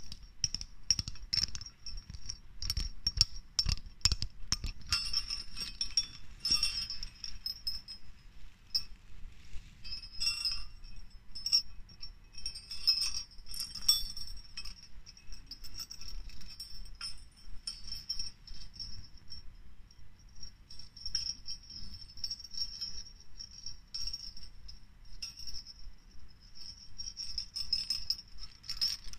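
Two small metal jingle bells on a novelty pen jingling close to the microphone, shaken on and off, with a high ringing tone. There are quick clicks over the first four seconds or so.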